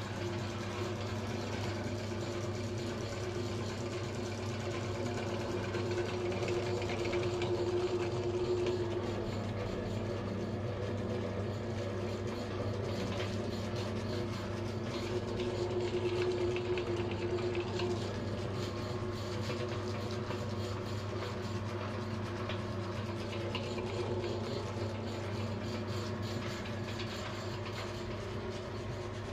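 Belt-driven meat grinder running steadily under load, a constant motor hum with a fixed low tone, as play dough is forced through its grinding plate. The sound swells slightly a couple of times as more dough is fed in.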